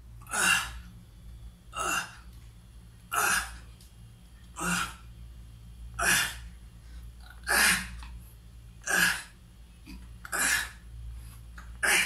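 A man's sharp, forceful breath with each push-up, nine in a steady rhythm about one every second and a half.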